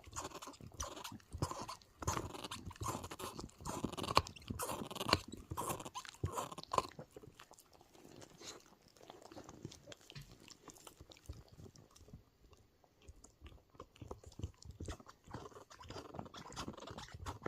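A pet animal chewing and crunching food with its teeth: a dense run of crunches for about the first seven seconds, then slower, quieter chewing.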